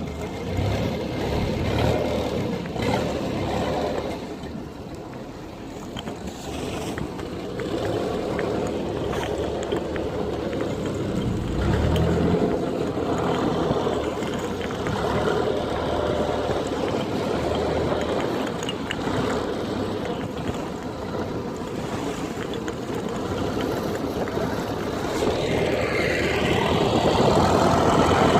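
Small fishing boat's engine running steadily while the prawn net is paid out, growing louder near the end.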